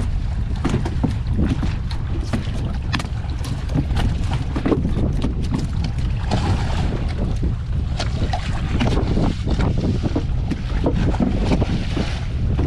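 Wind rumbling on the microphone over sea water splashing along the boat, with frequent short sharp knocks and slaps as a freshly landed queenfish is handled and unhooked on the boat's deck.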